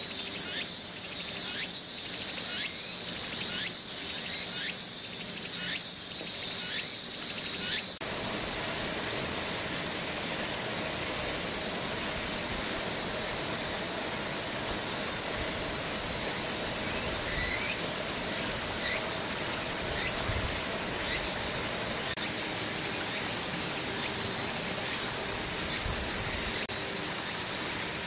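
A loud outdoor chorus of insects: shrill pulsing for the first several seconds, then, after an abrupt change about eight seconds in, a steady high hiss with a faint low hum underneath.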